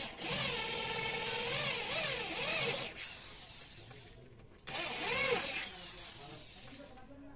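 Cordless drill boring into a 15 mm rubberwood panel, the motor's pitch dipping and rising as it bites, stopping about three seconds in. The drill runs again briefly about five seconds in.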